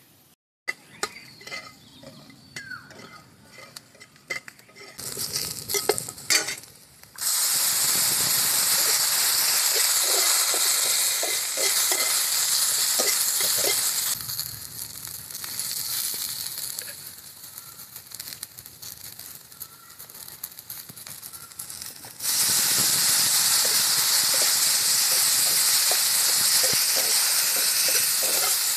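Chopped carrot, green chilli and onion sizzling in a hot black frying pan while a metal spatula scrapes and stirs them. The first few seconds hold only light scrapes and clicks. A loud, steady sizzle starts suddenly about seven seconds in, eases off in the middle, and comes back loud near the end.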